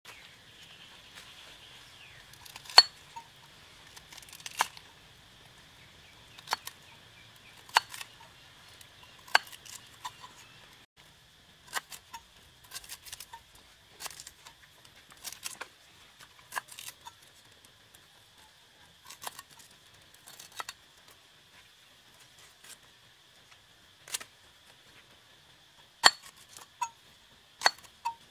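Knife slicing through fresh lemongrass stalks over a stone mortar, a sharp crisp cut every second or two, with cuts coming faster near the end. A steady high hum runs underneath.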